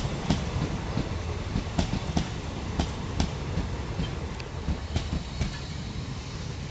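Express train coaches rolling past on the rails, their wheels knocking irregularly over rail joints over a steady rumble. The sound slowly gets quieter as the train slows to a halt.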